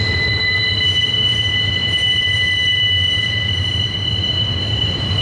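Double-stack intermodal well cars rolling slowly through a sharp curve, their wheels squealing against the rails in a steady high, multi-pitched whine over a low rumble from the wheels and cars.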